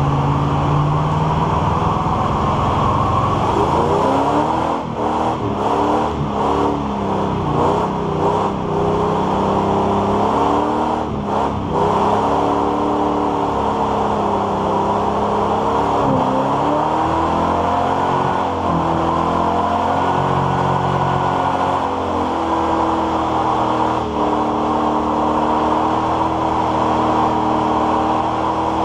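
Classic Chevrolet C10 pickup's engine revving hard in a burnout, its pitch swooping up and down again and again, then held high and steady over the last ten seconds or so, over the steady hiss of the spinning rear tyre.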